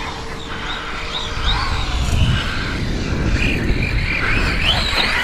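Brushless 3670 motor of a VKAR Racing Bison V2 RC truggy whining, its pitch rising and falling with the throttle as the truggy is driven, over a steady low rumble.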